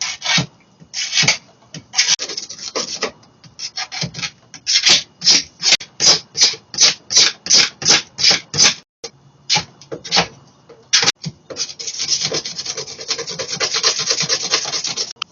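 Hand abrading by sanding or filing: rasping back-and-forth strokes, about two and a half a second, then a steadier spell of continuous rubbing near the end that stops abruptly.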